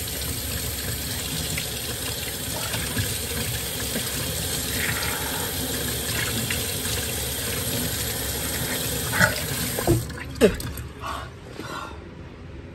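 Kitchen faucet running in a steady stream, the water splashing into cupped hands and the sink while a person drinks from her hand. The water stops about ten seconds in, with a few brief sharp sounds around the cut-off.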